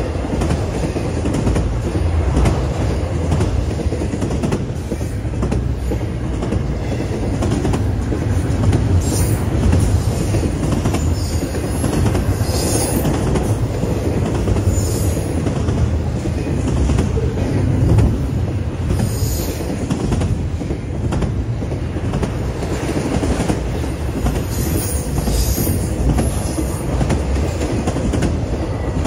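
Loaded BNSF intermodal freight train passing close by at speed: a steady low rumble of steel wheels on rail, with several short high-pitched wheel squeals along the way.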